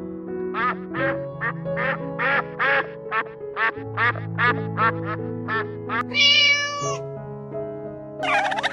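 A duck quacking in a quick run of short calls, about fourteen in five seconds, over background music with long held notes. A longer, higher-pitched call follows near the end.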